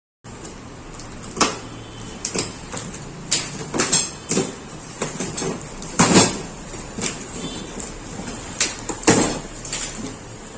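Irregular knocks and clatter from the parts and packaging of a steel floor cloth-dryer stand being handled, with one brief metallic ring about four seconds in.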